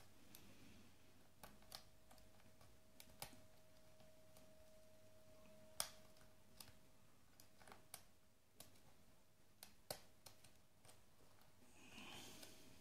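Faint, scattered clicks and ticks of a lock pick and tension wrench working the pins inside a Medeco lock, the loudest about six and ten seconds in, over a faint steady tone.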